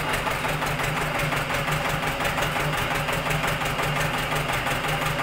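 An engine running at a steady speed with a fast, even knocking beat over a constant hum.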